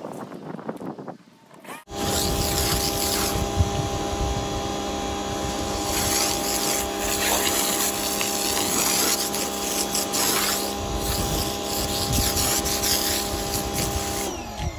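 Greenworks electric pressure washer starting about two seconds in and running steadily, its motor and pump humming under the hiss of the water jet. It stops abruptly near the end when the trigger is released.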